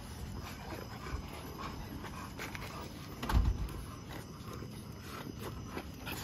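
Small dogs and puppies moving about on a concrete driveway: scattered light clicks and scuffs, with one low thump about halfway through.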